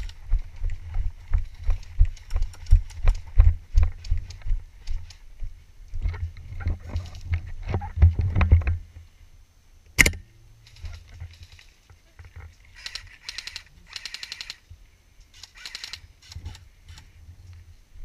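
Footsteps on dirt, heard as heavy, muffled low thumps through a GoPro's closed waterproof housing, about two or three a second, stopping after roughly nine seconds. A single sharp click follows about a second later, and near the end come two short, fast rattles of clicks, like distant full-auto airsoft fire.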